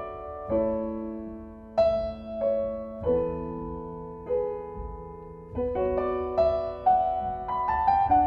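Slow background piano music: single notes and chords struck about once or twice a second and left to ring out.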